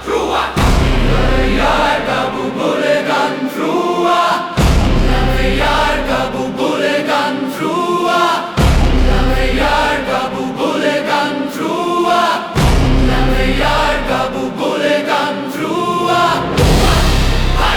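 Dark orchestral music with a choir chanting in repeating phrases, over a deep low swell that comes back about every four seconds.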